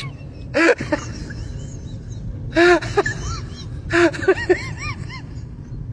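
A dog whimpering and yelping in three short bursts of high-pitched rising-and-falling cries.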